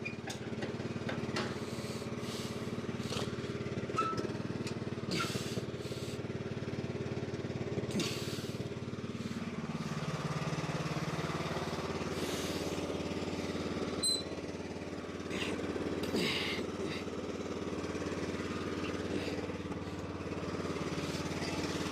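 John Deere LA105 riding mower engine running steadily, smooth after its carburetor was cleaned and put back together, with a few short knocks and rattles on top.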